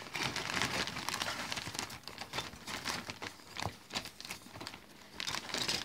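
Plastic bag crinkling and rustling in irregular crackles as model-kit parts sprues are handled and pulled out of it.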